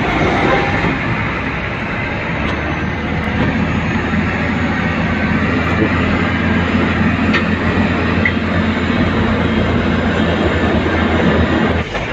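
Diesel engine of a Hino 500 hook-lift truck running steadily under load as its hydraulic arm tips a roll-off bin of garbage, a continuous heavy rumble with a low steady hum.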